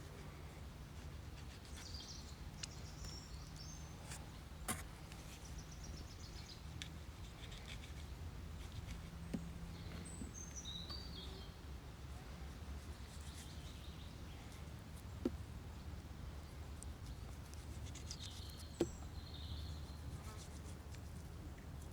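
Small birds chirping now and then over a steady low rumble of outdoor ambience, with a few sharp isolated clicks or snaps spread through.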